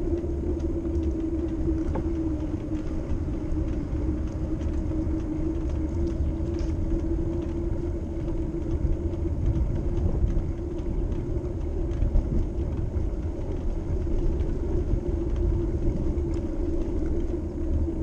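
Bicycle riding on a paved path: a steady rumble of wind on the microphone and tyres rolling, with a steady hum running under it.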